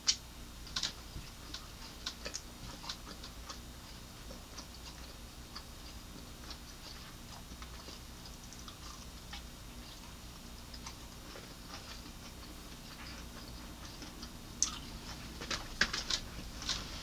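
A person eating crispy fried chicken wings: scattered small crunches and wet clicks of biting and chewing. A run of louder clicks and crackles comes near the end, over a faint steady low hum.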